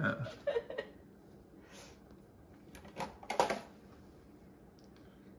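A few light clicks and knocks of small objects being handled on a kitchen counter, about two and three seconds in.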